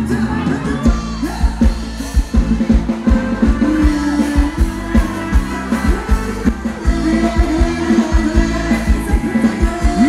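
Live band playing upbeat Thai ramwong dance music, with a steady drum beat, bass and a singing voice.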